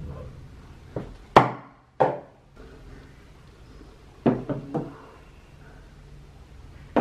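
Objects on a shelf knocking against its top as they are set down and moved, among them a ceramic plant pot and a glass vase. There are a handful of sharp knocks, the loudest two about a second and a half and two seconds in, each with a short ring, then a quick cluster of three around four seconds in and a pair near the end.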